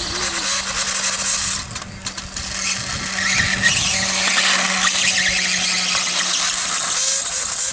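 Electric RC dirt bike's motor and drivetrain whining at speed, easing off briefly about a second and a half in, then running on.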